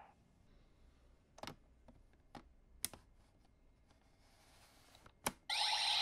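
Toy-belt handling: a few light plastic clicks, then a sharp click as the Ohja card deck sits in the CSM V Buckle. Right after it the belt's electronic sound effect starts abruptly and loud, as its red light comes on.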